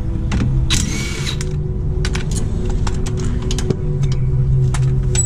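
Cordless driver with a socket spinning out brake caliper bolts: the motor whirs in two spurts, about a second in and again near the end, amid clicks and knocks of the tool and metal parts.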